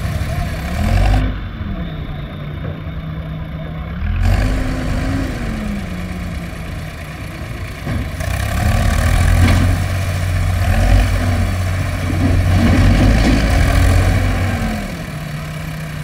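Diesel engines of a backhoe loader and a stuck tractor running together, one revving up and falling back in about five surges under load over the steady run of the other, as they strain to free the tractor-trailer from the river water.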